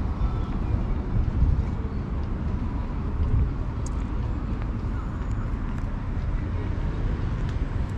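Outdoor street ambience: a steady low rumble of road traffic mixed with wind buffeting the microphone.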